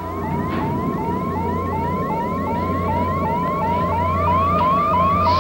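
Electronic science-fiction sound effect: a short rising tone repeats about two to three times a second over a steady low hum.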